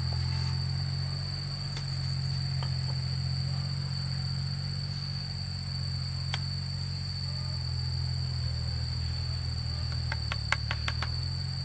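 A steady low hum runs under a constant thin high tone, and a quick run of sharp clicks comes near the end as stone and trowel knock together while stones are set in mortar on a stone wall.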